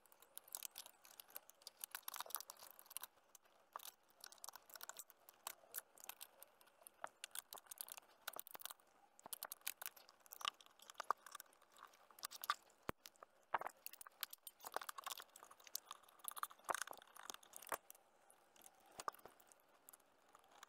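Plastic screen bezel and trim of a Lenovo laptop being pressed back onto the lid by hand, the clips snapping into place: a string of faint, irregular clicks and crackles.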